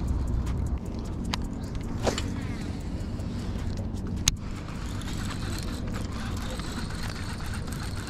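Steady low wind rumble on the microphone over open water, with three sharp clicks from handling a baitcasting rod and reel.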